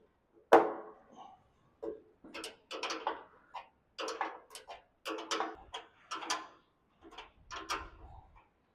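Irregular metal clinks and clanks of bolts and a reinforcement strip being handled and fitted against a tractor fender. Sharp knocks, some with a short ring, the loudest about half a second in.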